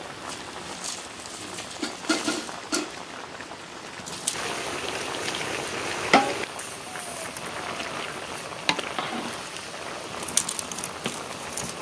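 Goat intestines and offal sizzling in a metal wok over a wood fire, stirred with a wooden spatula that scrapes and knocks against the pan several times. The sizzle grows louder about four seconds in, with one sharp knock a couple of seconds later.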